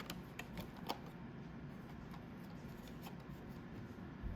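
Small plastic clicks and ticks of an Axial SCX24 Deadbolt mini crawler's drivetrain being turned by hand, a few sharper ones in the first second, over a faint low hum. The drivetrain should spin freely but is stiff; the owner suspects something is bound up.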